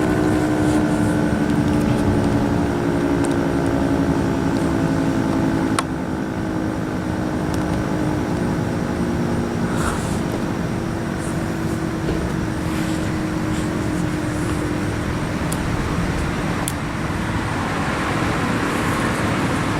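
Federal Signal 3T22 three-tone outdoor warning siren winding down, its chord of low tones fading away over the first several seconds, with steady road traffic noise underneath. A sharp click comes about six seconds in.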